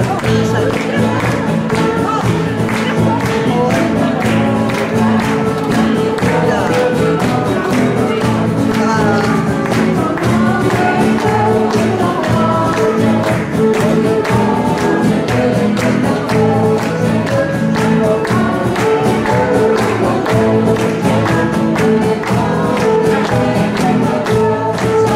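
Live band playing an Indonesian-style song, guitars, bass and percussion on a steady beat, with a woman singing over them.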